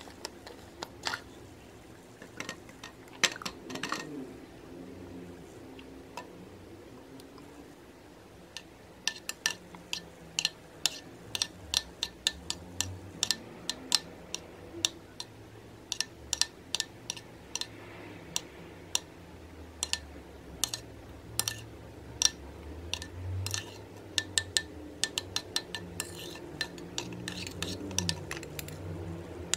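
A metal knife stirring gouache paint in a glass bowl, its blade clinking against the glass in many short, irregular taps from about nine seconds in, with a soft wet squelch of the paint under them. Before that, only a few separate clicks.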